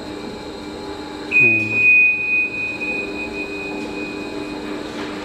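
Motorized mobile pallet racking running on its floor rails with a steady machine hum. A continuous high-pitched tone sounds from about a second in until near the end.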